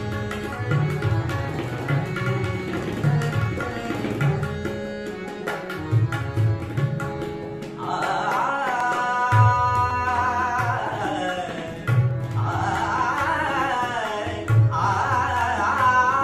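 Harmonium and tabla accompaniment, with the tabla's deep bass strokes repeating under a sustained harmonium line. About halfway through, a young male voice comes in singing Marathi light-classical vocal phrases with wavering ornaments, in three phrases over the accompaniment.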